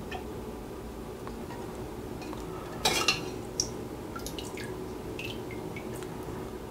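A small saucepan knocks against a metal pot as it scoops used frying oil, with one loud clatter about three seconds in and a few light clinks after it. Oil drips and trickles back into the pot.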